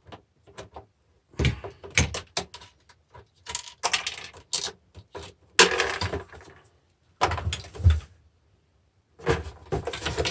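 Metal parts and hand tools clinking, knocking and rattling as a car battery charger is taken apart by hand, in irregular bursts with short pauses between.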